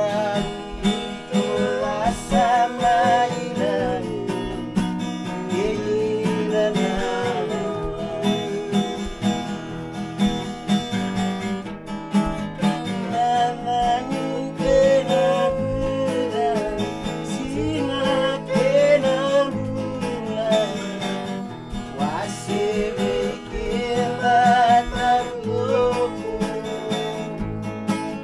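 Acoustic guitar and ukulele strummed together in a steady rhythm, with a man singing a wavering melody over the chords.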